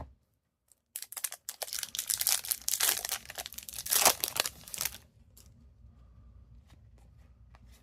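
Foil wrapper of a hockey card pack being torn open and crinkled for about four seconds, loudest near the end, then a few faint clicks as the cards are handled.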